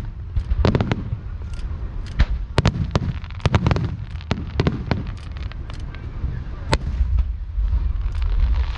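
Aerial fireworks shells bursting in an irregular string of sharp bangs, each trailed by a low rumbling echo. After about seven seconds the bangs thin out, leaving a steady low rumble.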